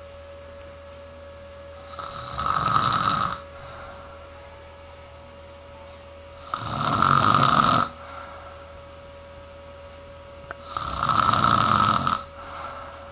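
A person snoring in sleep: three long snores, each a little over a second, about four seconds apart. A faint steady hum runs underneath.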